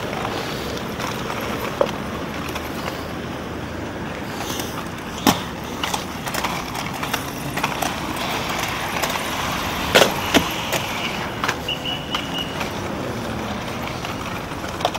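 Quad roller skate wheels rolling on pavement over a steady hum of road traffic, broken by several sharp clacks of the skates striking concrete ledges, the loudest two close together past the middle.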